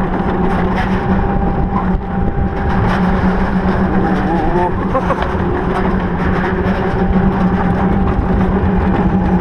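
Wiegand bobkart coaster car running along its track: a steady, loud rumble over a constant hum.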